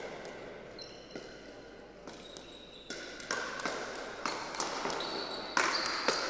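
Pickleball paddles striking a plastic pickleball in a rally: a few sharp pops at first, then a quicker exchange from about three seconds in, ending in a hard overhead smash, the loudest hit, near the end.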